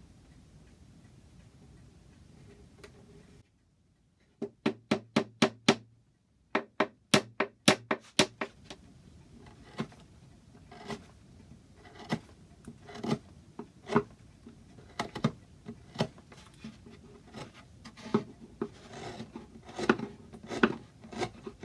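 Hammer tapping dowels into the wooden clock case in two quick runs of sharp strikes, about three a second. These are followed by scattered lighter knocks and rubbing of wood as the work is handled.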